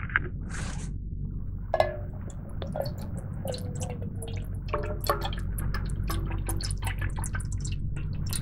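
Water poured from a plastic bottle into a metal camping pot, splashing and glugging irregularly, starting about two seconds in.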